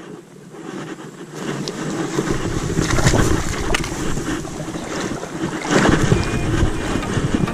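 Wind buffeting the microphone over splashing, moving water, building up over the first couple of seconds, with a few sharp clicks.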